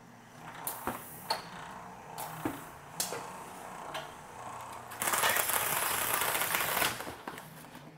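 Little David Loveshaw 16A case taper running with a steady drive hum. Sharp clicks and knocks come as a box is fed in and the flaps and rollers are engaged. About five seconds in, a loud hiss of packing tape unwinding from the tape heads seals the box and lasts about two seconds.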